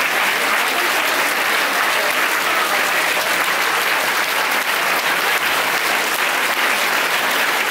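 Sustained applause: a large crowd of people clapping steadily, with no break.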